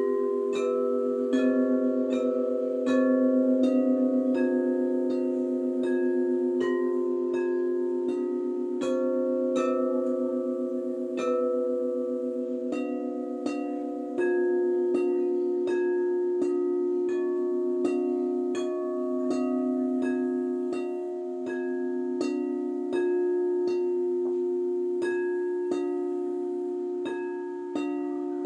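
Quartz crystal singing bowls struck with mallets, about two strikes a second, picking out a melody. Each note rings on and overlaps the next.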